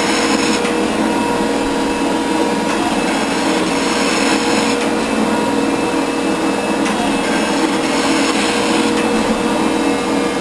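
24-inch Rockford hydraulic shaper running, its hydraulic drive giving a steady hum while the ram strokes the cutting tool back and forth across a milling vise. The sound shifts in a slow cycle of about two seconds, one ram stroke after another.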